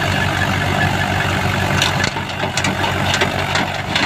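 Mahindra 585 DI XP Plus tractor's four-cylinder diesel engine running steadily while it pulls and drives a straw reaper through stubble, with a thin steady whine above it. About halfway through the low engine note drops and a run of sharp clicks and knocks comes in.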